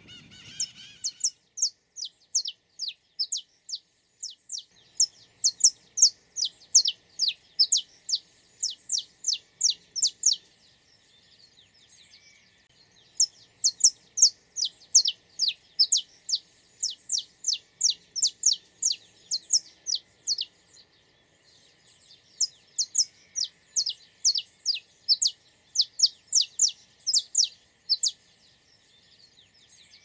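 Saffron finch (canário-da-terra, Sicalis flaveola) singing: a run of sharp, high, downward-sliding notes, about three a second, delivered in three long phrases with short pauses between them.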